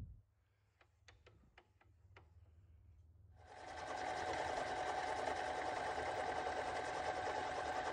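A few faint clicks, then about three and a half seconds in a Harbor Freight mini metal lathe starts up and runs steadily with a constant whine, turning a bronze rod.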